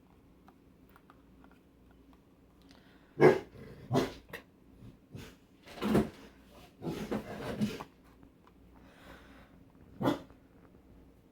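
A dog barking in short bursts, about 3 and 4 seconds in, several more in a run from about 6 to 8 seconds, and once more near 10 seconds.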